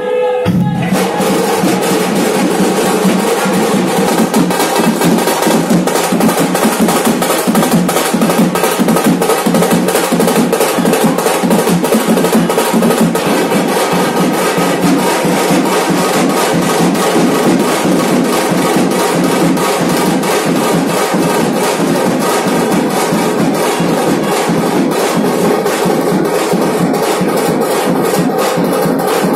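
Punjabi dhol drums beaten in a fast, driving rhythm, loud and unbroken, kicking in just under a second in.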